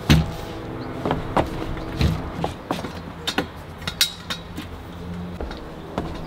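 Irregular knocks and metallic clinks of metal camping gear being handled, as things are picked up and rummaged through in an aluminium storage box, with the sharpest knock just after the start.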